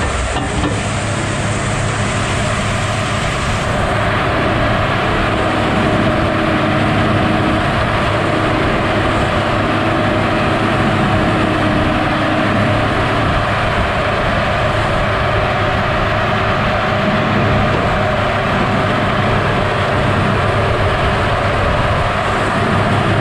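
Slasher with a large circular Kodiak saw blade and the log loader's diesel engine running steadily while logs are cut and lifted away. A droning tone fades out about halfway through.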